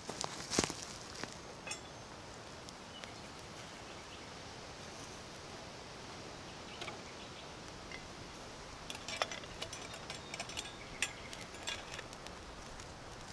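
Light metallic clinks of a stainless steel pot's lid and wire bail being handled. There is one click just after the start and a scattered run of clinks through the second half, over a steady faint outdoor hiss.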